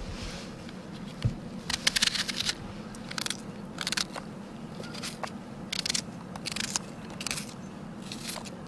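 A small knife cutting a raw onion held in the hand: crisp crunches about once a second, with a quick run of them about two seconds in.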